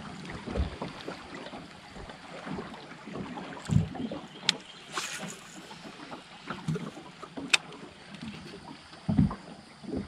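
Wind and water lapping against a fishing boat's hull, with a few soft thumps and sharp clicks.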